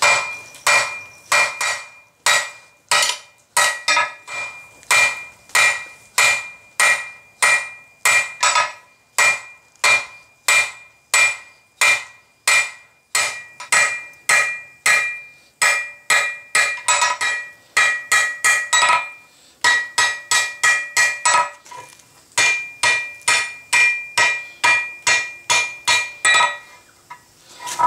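Hand hammer striking red-hot steel flat bar on an anvil, about two blows a second, each with a metallic ring, drawing the bar out into the reins of blacksmith tongs. The blows break off briefly about two-thirds through and stop near the end.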